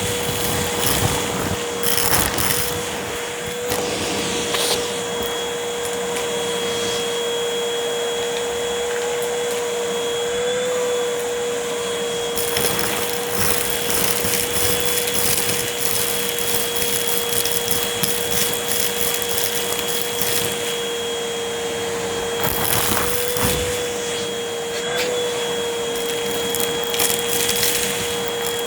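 Vacuum cleaner running with a steady motor whine while crunchy debris is sucked up, giving stretches of crackling and rattling over the drone. The whine's pitch wavers briefly a couple of times.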